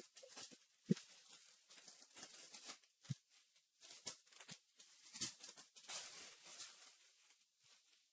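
Faint crinkling, tearing and light taps of packaging being handled while a trading card hobby box is opened.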